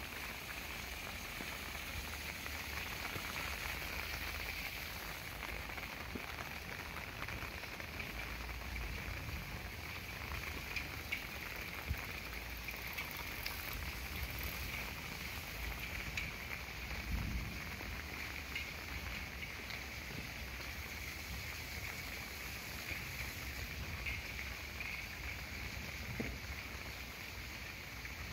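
Steady rush of a swollen, muddy river in flood after heavy rain, with water pouring from a drain outlet into it, over a low rumble.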